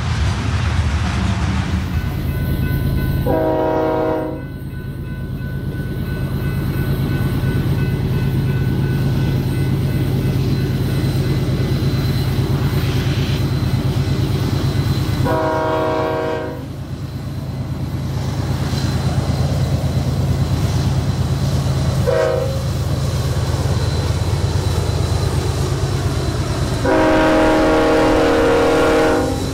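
Union Pacific diesel locomotives heading a coal train blow their air horn at a grade crossing in the crossing pattern: long, long, short, long. The last blast is held as the engines pass. Under the horn the steady rumble of the diesel engines runs throughout.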